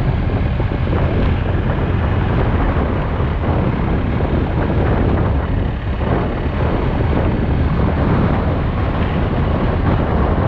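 Wind buffeting the GoPro's microphone on a moving ride, a steady rushing noise over a low, even rumble.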